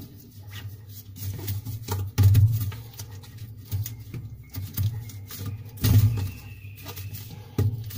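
White plastic sink bottle trap handled and slid into place by gloved hands: irregular scraping, rustling and light clicks of plastic on plastic, with a couple of louder knocks.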